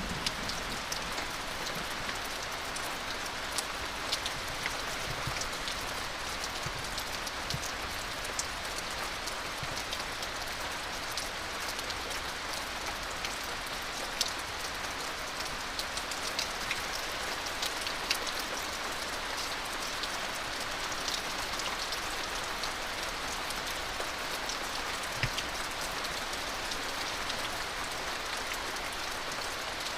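Steady rain falling, a continuous hiss with many individual drops ticking sharply close by.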